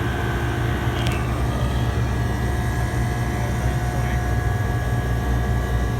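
Walk-in freezer's refrigeration condensing unit running steadily: a constant low hum with a few steady tones above it, and a short click about a second in. It is running continuously with its faulty temperature control bypassed.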